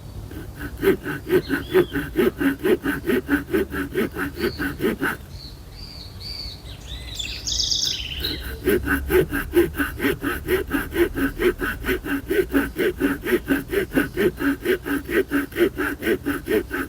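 Small saw blade of a Victorinox RangerGrip pocketknife sawing through a log about 5 to 7 cm thick, with quick, even back-and-forth strokes about four times a second; this saw cuts on the pull stroke. The sawing stops about five seconds in while a bird chirps briefly, then starts again about three seconds later.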